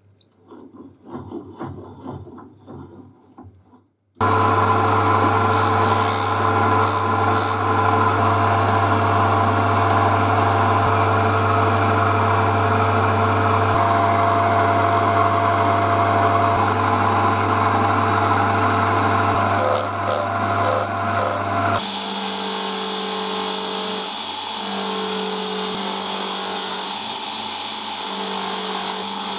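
Small metal clinks of a part being fitted, then a metal lathe starts about four seconds in and runs steadily with a low hum while a hand-held abrasive rubs on the spinning brass part. Near the end it cuts to a bench buffing machine running steadily as the part is polished on the wheel.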